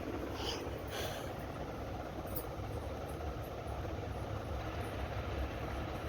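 Steady background rumble and hiss with no speech. Two faint brief high chirps come about half a second and a second in.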